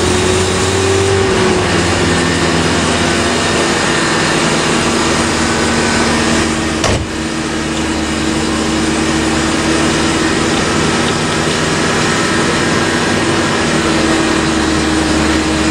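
Rebuilt Mazda 12A two-rotor rotary engine of a 1984 RX-7 running steadily at a fast idle with the choke pulled, just after starting, heard from inside the cabin. A single click about seven seconds in.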